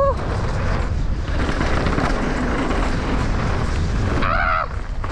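Wind rushing over the mic of a helmet-mounted camera, mixed with tyre and dirt noise, as a downhill mountain bike descends at speed.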